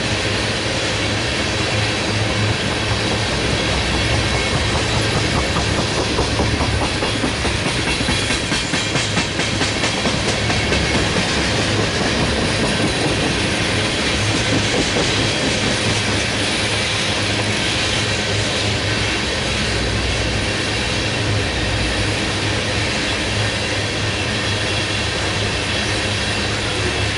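Long string of railroad tank cars rolling past at speed, a steady rumble of steel wheels on rail with rapid clickety-clack from wheels crossing rail joints.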